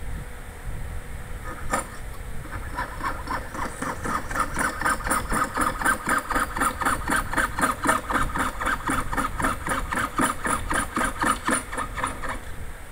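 Jeweler's saw blade cutting through brass sheet in quick, even up-and-down strokes, several a second. The rasping starts about two seconds in and stops just before the end.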